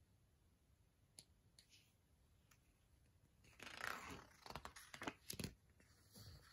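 A picture-book page being turned by hand: a soft paper rustle starting about halfway through, with a few light flicks as the page flaps over. A couple of faint ticks come before it.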